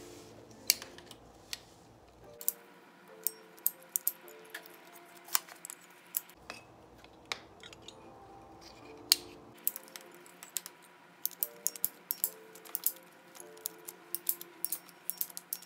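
Ratcheting PVC pipe cutter clicking as its handle is squeezed again and again through 1-inch PVC pipe. The clicks are spaced out at first and come quickly in the last few seconds. Faint background music plays under it.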